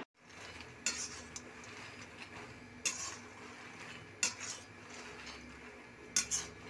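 About five light, sharp clinks of a kitchen utensil against a metal vessel, spaced a second or more apart, over a faint steady low hum.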